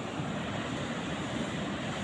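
Steady rushing noise of a flowing river.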